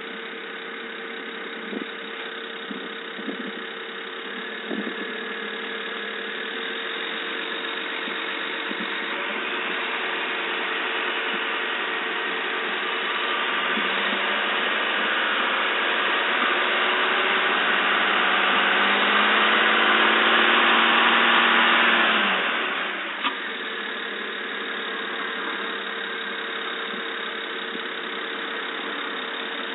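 BMW N53 straight-six engine running with a steady high-pitched tone and a few sharp ticks at idle. The revs climb slowly, then fall back to idle about three-quarters of the way through. It is the strange sound the engine has made since its injectors were replaced.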